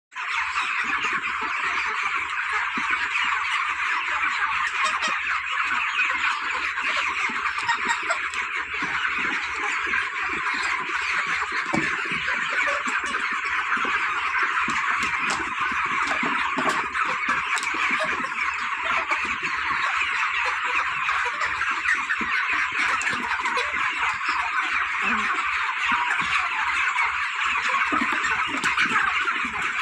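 A large flock of 38-day-old farm chickens calling all together: a dense, steady din of overlapping high peeping calls with no break.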